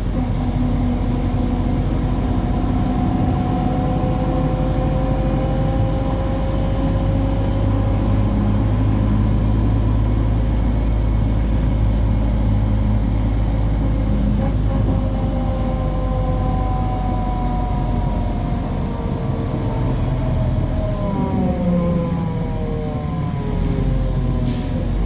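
Bus running along at speed with a whine over the engine and road noise. The whine's pitch rises and falls slowly, then drops steeply several times near the end as the bus slows or changes gear. The whine is the strange noise the bus is making.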